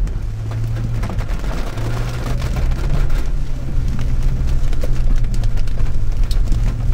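Car engine and road hum heard inside the cabin, steady and low, with rain striking the car as many small sharp ticks.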